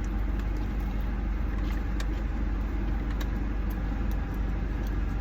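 Steady low rumble of an idling car, with a few faint small clicks.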